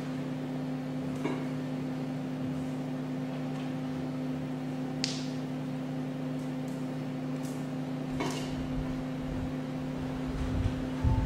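A steady machine hum with two low tones, broken by a few brief soft rustles or knocks; low rumbling and a couple of thumps come in near the end.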